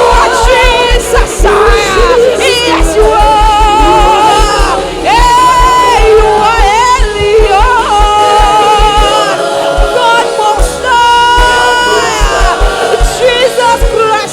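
Gospel worship music: a singer holds long, wavering notes over a band with a steady low beat.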